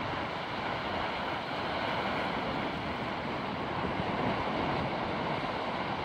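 Ocean surf: small waves breaking and washing up a sandy beach in a steady rush, with wind noise on the microphone.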